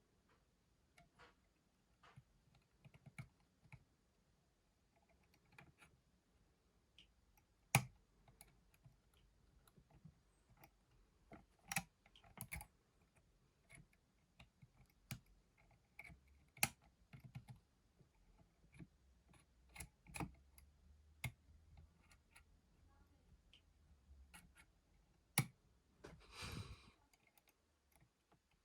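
Faint, irregular small metal clicks and taps of a lever-lock pick and turning tool working the levers of a 5-pin curtain lever lock, with a few sharper clicks among them. A brief soft rustle about two seconds before the end.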